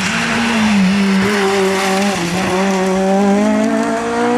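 Hill-climb race car engine at high revs, its pitch climbing steadily as the car accelerates, with a short dip a little over two seconds in.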